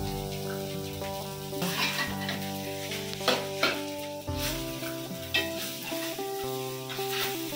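Metal spatula stirring and scraping fried rice in a stainless steel wok on a gas burner, with the rice sizzling. Several sharp scrapes of the spatula on the pan, over background music with held chords.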